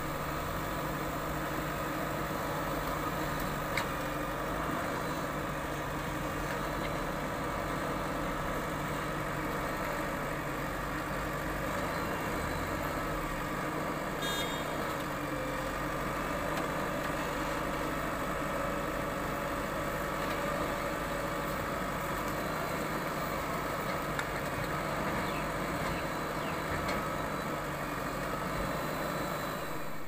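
JCB 4DX backhoe loader's diesel engine running steadily while the backhoe digs, with one short metallic clink about halfway through.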